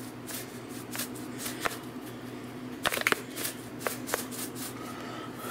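Ground beef frying in a skillet, giving scattered sharp crackles and ticks, a small burst of them about three seconds in, over a steady low hum.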